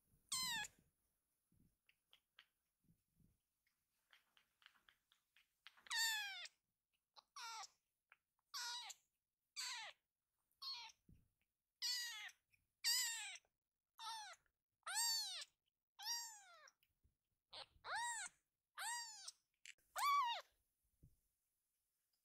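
A tiny tabby kitten meowing over and over, high-pitched cries about one a second, each rising and falling in pitch: a kitten calling to gather its littermates.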